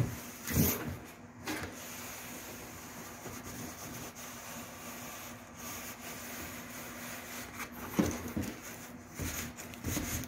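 A cardboard carton is handled on a wooden table: it knocks down onto the tabletop twice at the start, then its flaps are pulled open with cardboard rubbing and scraping, and there are more knocks and rustling from about eight seconds in.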